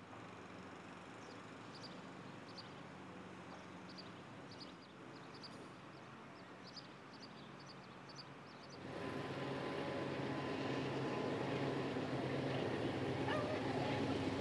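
Quiet outdoor background with small birds chirping in short high notes. About nine seconds in, it switches abruptly to a louder, steady rumble with a low hum.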